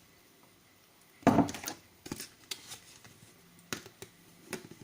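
A spoon knocking and scraping against a bowl while dry ingredients are spooned out: one sharper knock about a second in, then several lighter taps and clicks.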